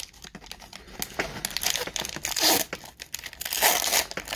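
A trading-card pack wrapper being torn open and crinkled by hand, in a run of rustling rips that are loudest about two and a half seconds in and again near four seconds.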